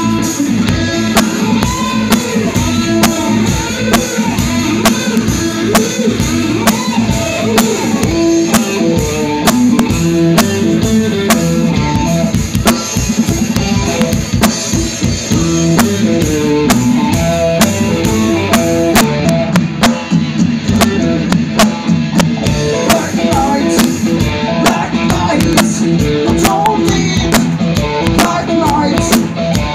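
Live rock band playing loudly: electric guitar lines and bass over a drum kit keeping a steady beat.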